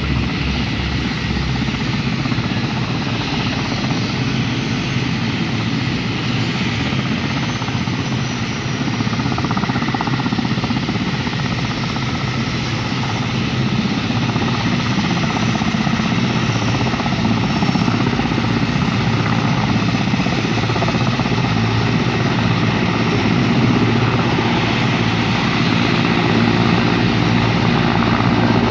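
Mil Mi-17 military helicopter running with its twin turboshaft engines and main rotor turning: a steady, heavy rotor and turbine noise. It grows louder over the second half as the helicopter powers up and lifts off.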